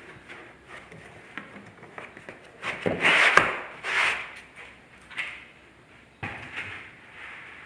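White foam packing panels being pulled and shifted inside a cardboard shipping box, scraping and squeaking against the cardboard walls in a series of rubs, loudest about three to four seconds in.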